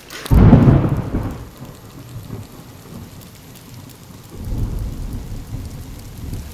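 A deep rumble that starts loud and dies away over about a second and a half, then a second, quieter rumble a few seconds later.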